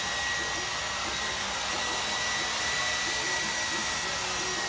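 Handheld hair dryer running steadily, a constant rush of blown air with a thin, steady high whine from its motor.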